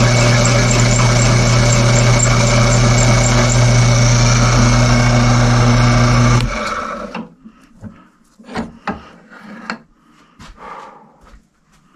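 A motor runs steadily with a low hum and cuts off abruptly about six and a half seconds in. Scattered light knocks and clicks follow.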